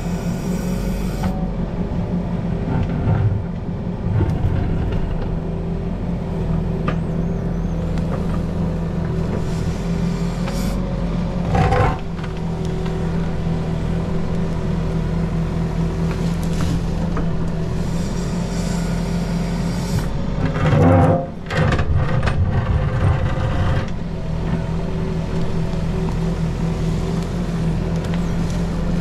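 A CAT 308E mini excavator's diesel engine running steadily under hydraulic load while the bucket digs. Two short, louder clatters from the bucket working the ground break through: one about halfway in, and a bigger one about two-thirds of the way through.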